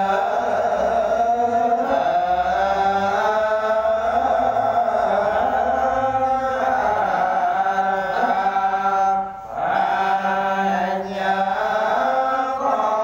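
Khmer Buddhist monks chanting a dhamma text (thor) into microphones: long, melodic male chant lines with a short pause for breath about nine seconds in.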